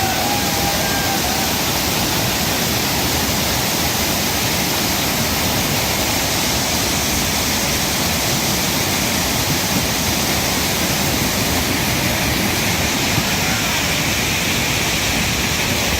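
Steady, even rushing of water, such as a river or waterfall, with no breaks or changes.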